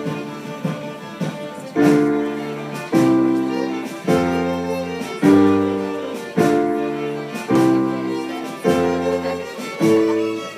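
A student ensemble of violins with keyboard playing a slow tune live. A new chord comes in about once a second and fades before the next.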